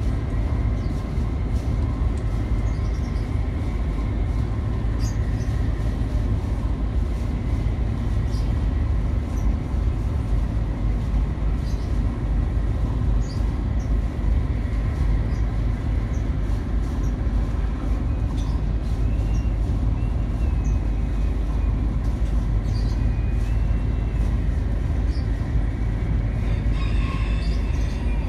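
Steady low rumble of the car carrier MV Serasi V's engines and machinery, heard aboard as the ship gets under way.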